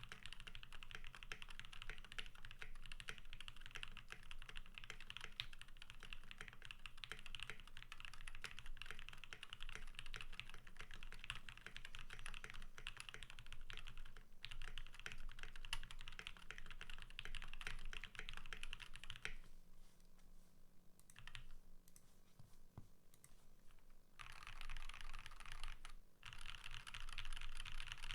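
Typing on a custom 65% mechanical keyboard with lubed and filmed JWICK Black linear switches on a steel plate and Akko ASA-profile keycaps: a fast, steady stream of keystrokes. About two-thirds of the way through, the typing thins to a few scattered strokes for several seconds, then picks up again.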